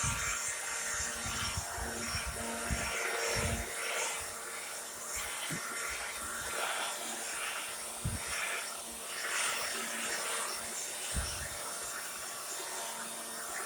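Electric leaf blower running with a steady motor hum and a rush of air, with a few low thumps of wind on the microphone.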